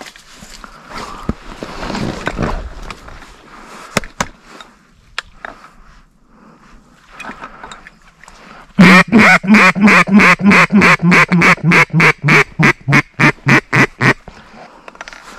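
A duck call blown close by, a fast run of about two dozen quacks at four or five a second lasting about five seconds. Before it come a few seconds of faint rustling and a couple of clicks.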